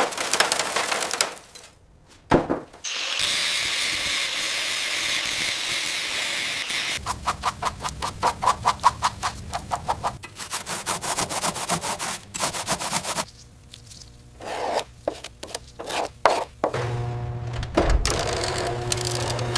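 A string of workshop tool sounds: a steady hiss, then rapid rhythmic rubbing strokes, a few knocks, and near the end a steady mechanical hum.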